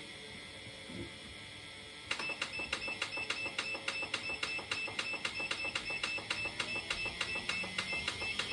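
Xterra treadmill drive motor running with no load and no one on the belt. A faint steady whine, then about two seconds in, rapid, evenly spaced ticking starts as the belt gets moving, and near the end a whine rises in pitch as the motor speeds up toward 3 mph. The motor has a whiny sound.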